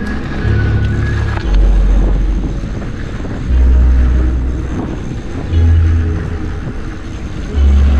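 Background music with a deep bass line that steps to a new note every second or two, over a steady rushing noise.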